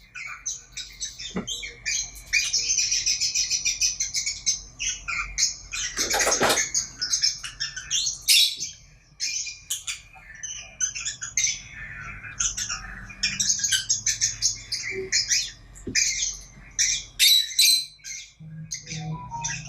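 A pair of pet lovebirds chattering with rapid, high-pitched chirps and squawks, with one louder squawk about six seconds in.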